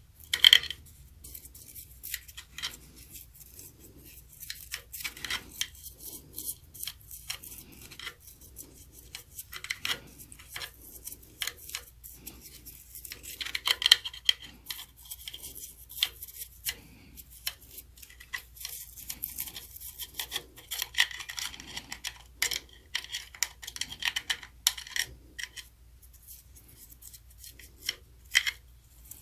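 Irregular scraping, clicking and short metallic clinks of hand work inside an open band saw gearbox as the old, dark gear oil is cleaned out, with a few denser bursts of ringing metal about halfway through and after about 19 seconds.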